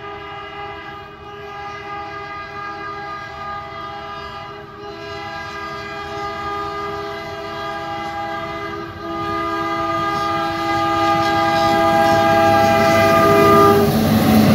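Air horn of an approaching track maintenance machine, sounding one long steady chord of several tones as a grade-crossing warning. It grows louder as the machine nears and cuts off just before the end, when the machine's running noise rises.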